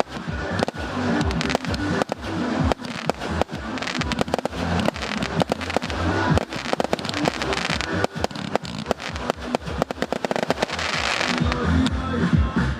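Fireworks display: a rapid, dense string of sharp bangs and crackles from shells bursting overhead, with music playing underneath.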